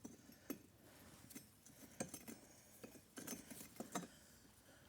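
Faint, scattered clinks and clicks of small metal tools being handled.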